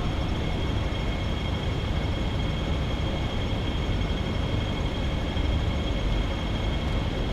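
Hair salon room tone: a steady low rumble and hum of running machinery, with two constant high-pitched whines over it.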